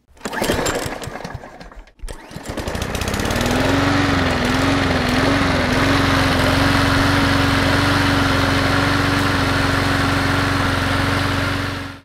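Portable generator's small engine catching and running: its pitch rises and wavers for a couple of seconds after it starts, then settles into a steady run.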